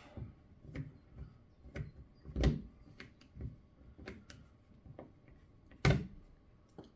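Pliers working a metal pin out of a plastic washing machine door handle assembly: a run of small clicks and taps, with two louder knocks, one about two and a half seconds in and one near the end.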